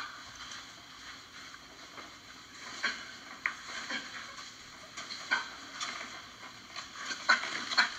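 A boxer shadowboxing, heard through a phone's speaker: short sharp sounds from his footwork and punching, spaced about a second apart, over steady hiss.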